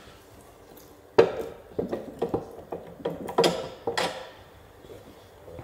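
Metal engine parts clinking and knocking as they are handled on a stripped-down AEC Routemaster bus engine: one sharp knock about a second in, then a string of clinks and clanks with a little ringing for about three seconds.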